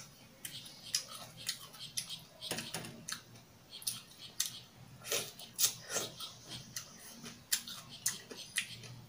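A person chewing a mouthful of kimchi and pork close to the microphone: irregular crunching clicks, several a second.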